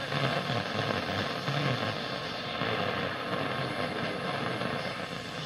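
AM radio static from a Kraco KID-581H tuned between stations on the AM band at night, a steady hiss and crackle. A weak station's voice is faintly heard under the noise in the first two seconds, then fades into the static.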